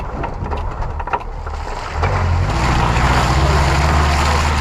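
Off-road vehicle's engine running as it drives a rough dirt track, picking up and getting louder about two seconds in, with wind buffeting the body-mounted camera and a few scattered knocks early on.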